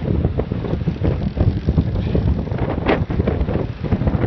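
Wind buffeting the microphone over the low rumble of a boat on open water, with a brief hiss about three seconds in.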